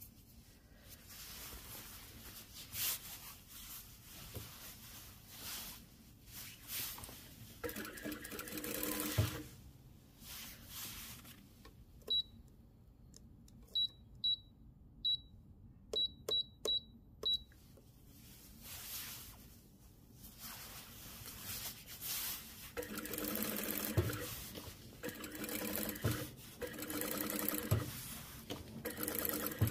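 Industrial lockstitch sewing machine running in short bursts as a padded nylon jacket is fed along its zipper, with the jacket fabric rustling as it is handled. In the middle comes a string of about nine short, high beeps, like button presses on the machine's digital control panel.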